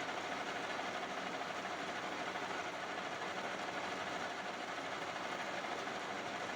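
Metal lathe running steadily during the machining of a metal pulley, an even mechanical noise with a steady whine.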